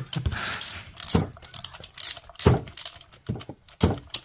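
Ratchet wrench clicking irregularly as a spark plug is turned down and tightened by hand.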